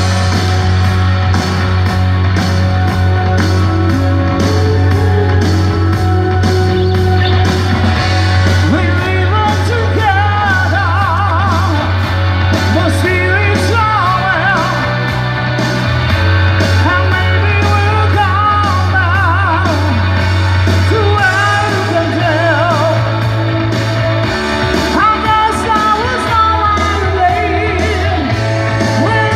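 Live rock band playing through a PA: electric guitar over a steady drum beat and a deep bass line that changes note every few seconds, with a singer coming in about ten seconds in, singing with vibrato.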